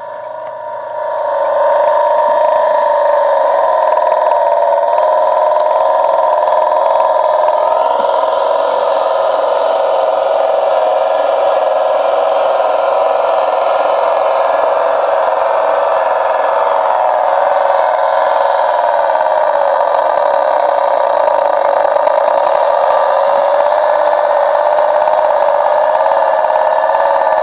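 Recorded Kenworth truck engine sound from an RC sound video, played back through a tiny metal-cone speaker. It is tinny, with no bass. The engine note steps up about 8 seconds in and drops back about 17 seconds in.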